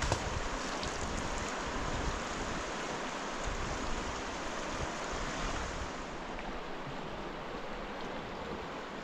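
Steady outdoor rushing noise with uneven low rumbles of wind on the microphone, easing slightly about six seconds in.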